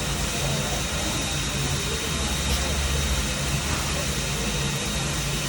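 Worthington 6-SA feedwater heater hot water pump on a steam locomotive running steadily: a continuous low mechanical hum under an even hiss, with a thin high steady tone.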